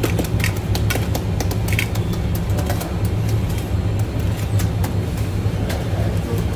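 Steady low machine hum from bakery equipment, with frequent irregular clicks and clattering knocks from work at the oven.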